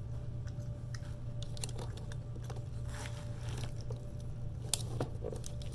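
A person chewing and biting food close to the microphone: scattered small crunches and mouth clicks over a steady low electrical hum, with one sharper click near the end.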